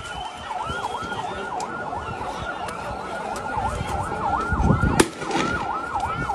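Emergency vehicle siren in a fast yelp, sweeping up and down about three times a second, with one sharp bang about five seconds in.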